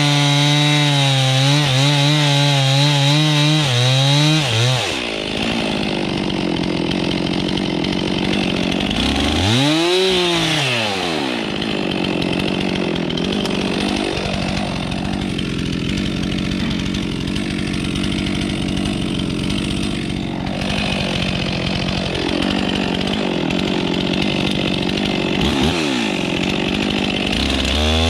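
Stihl MS 362 two-stroke chainsaw at full throttle cutting through a spruce trunk, its pitch wavering under load, then dropping to idle about five seconds in. It gives a short rev up and down around ten seconds, idles steadily for a long stretch, and revs again near the end.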